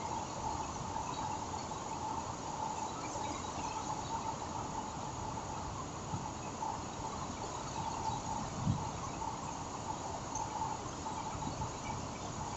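Steady hiss of heavy rain at night, with insects chirping in a steady pulsing drone through it. A single low thump comes about two-thirds of the way in.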